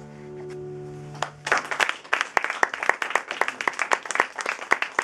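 The song's last chord rings out for about a second and a half. Then applause from a small audience starts and carries on, quick claps that cover the fading chord.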